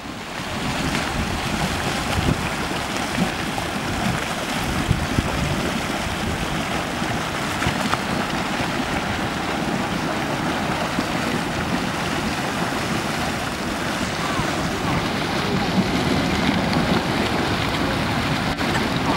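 Steady rushing noise of churning hot-spring water and venting steam, mixed with wind on the microphone.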